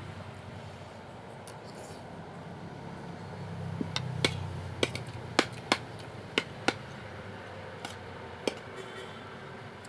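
Eating utensils clinking sharply against dishware during a meal of soup, about nine separate clinks between roughly four and eight and a half seconds in, over a steady low hum.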